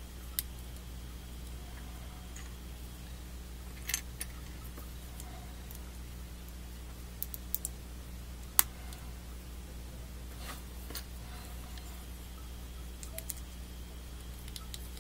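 Hard plastic parts of a Master Grade Gundam AGE-2 model kit clicking and snapping as they are pressed together by hand: short sharp clicks every second or few, the loudest about eight and a half seconds in, over a steady low hum.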